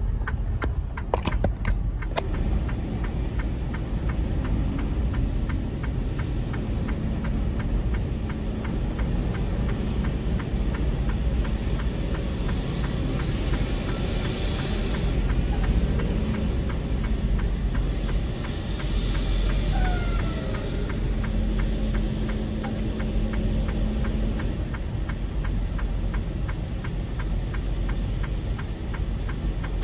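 Semi-truck's diesel engine running at low speed with a steady low rumble, heard from inside the cab as the truck rolls along.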